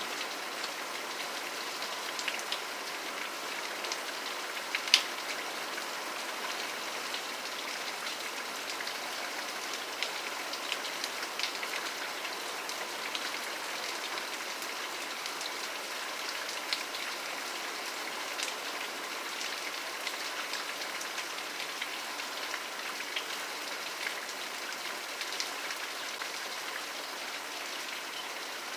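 Steady rain falling, an even hiss with scattered louder drop ticks, one sharper tick about five seconds in.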